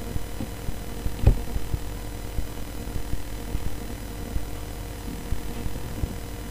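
Steady low hum with many soft low thumps scattered through it, and one louder knock about a second in.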